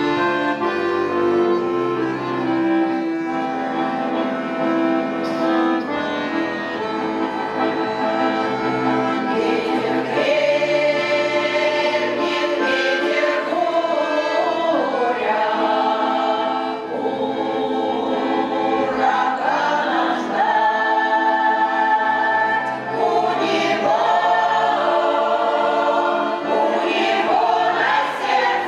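Russian folk choir singing together with instrumental accompaniment.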